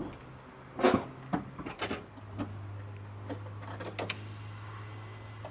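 Someone moving at the driver's seat of an Opel Astra H: about eight light knocks and clicks between one and four seconds in, the loudest about a second in, over a low steady hum.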